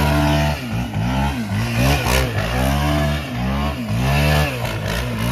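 Yamaha Raptor 700 quad's single-cylinder engine revving up and falling back over and over, roughly once a second, as the quad spins circles in sand.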